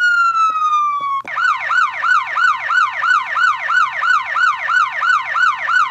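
Whelen 295HFSA1 electronic siren: the tail of the slow wail tone falls in pitch and cuts off just after a second in, then the siren switches to yelp, with fast rising-and-falling sweeps about three and a half times a second.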